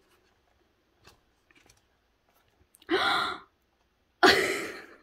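A woman's short voiced sound about three seconds in, then a louder breathy gasp just after four seconds that fades away, over a few faint ticks of photobook pages being handled.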